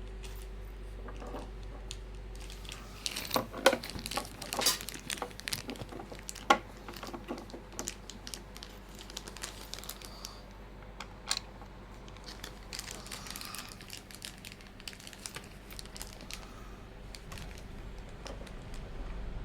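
Irregular crinkling, rustling and small clicks of packaging being handled, densest in the first half, over a faint steady low hum.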